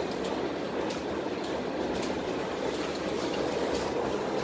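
Tatra T6B5 tram running, heard from inside the passenger saloon: a steady rumble of wheels on rail with a few faint clicks.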